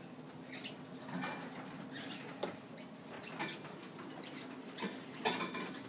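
Hospital bed being wheeled along a corridor: irregular light knocks and rattles over a steady low hum.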